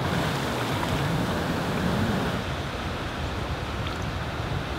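Surf breaking and shallow wave wash running over the sand, a steady noisy rush with wind on the microphone, easing a little after about two seconds.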